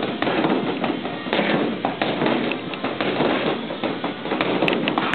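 Gloved fists punching a Wavemaster Super X free-standing punching bag: a run of quick, irregular thuds.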